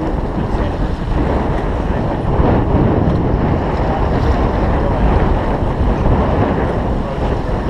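Wind buffeting the microphone over the steady rush of water breaking along the hull of a sailboat moving briskly under sail.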